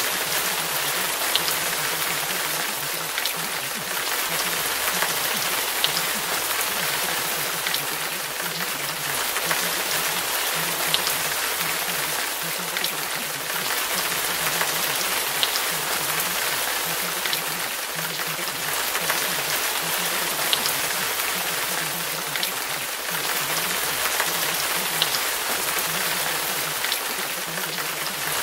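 Steady rain falling, an even hiss with occasional sharper drop ticks.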